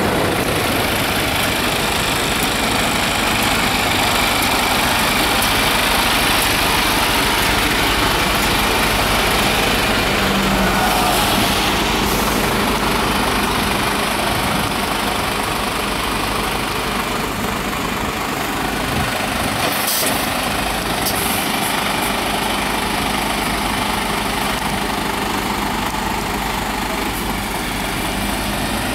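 A truck engine idling steadily, with a constant hiss over it.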